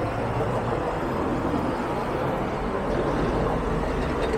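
Steady city street traffic: vehicle engines running with a low hum under a constant wash of road noise.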